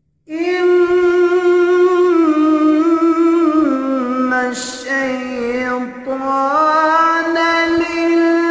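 A man's voice reciting the Quran in melodic tajweed style, drawing out long held notes with ornamental turns. It starts abruptly about a quarter second in, holds a high note, dips lower in the middle, then climbs back and holds high again.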